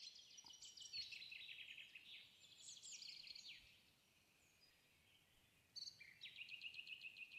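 A songbird singing faintly: a fast run of repeated high notes that steps down in pitch for about three and a half seconds, then, after a pause, a second phrase about six seconds in.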